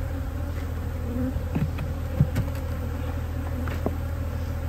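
Honey bees buzzing in a steady hum around an opened hive, with a few light knocks.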